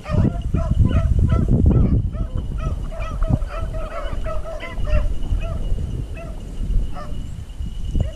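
A pack of beagles baying on a rabbit's track: a dense run of many short, overlapping, honking calls, with a brief lull near the end.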